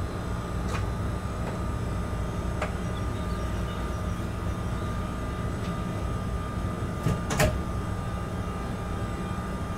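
Locomotive running light, heard from inside its cab: a steady low rumble with a constant thin whine, and a few short knocks, the loudest pair about seven seconds in.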